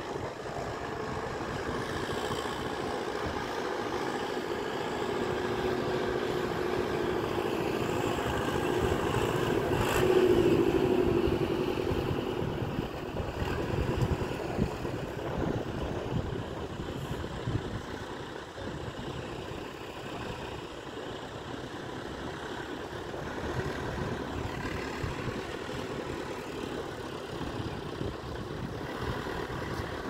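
Massey Ferguson 175 tractor engine running under load while it pulls a disc plough, growing louder about a third of the way in, then easing back.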